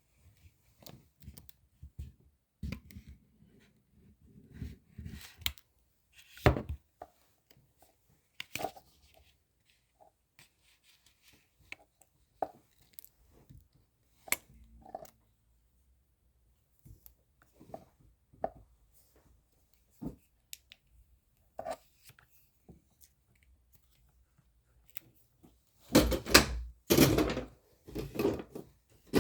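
Scattered clicks and knocks of objects being handled on a hard surface, then a louder run of scraping and rustling about 26 seconds in.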